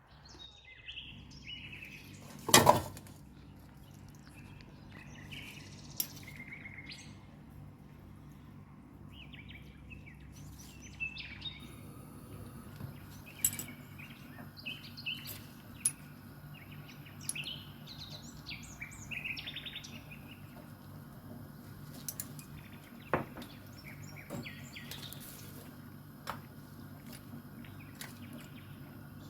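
Small birds chirping and calling on and off over a low steady hum, with one loud sharp knock about two and a half seconds in and a few lighter clicks later.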